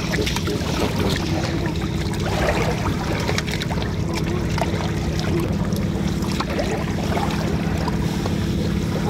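An engine runs with a steady, even drone. Over it come scattered small clicks and wet rustles from a mesh fishing net full of small fish being shaken and lifted.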